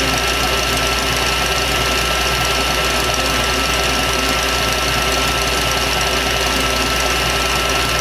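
KitchenAid Classic tilt-head stand mixer running steadily, its wire whip beating heavy cream in a stainless steel bowl as it thickens into whipped cream. The motor gives a constant whine over a fluttering whir from the whip.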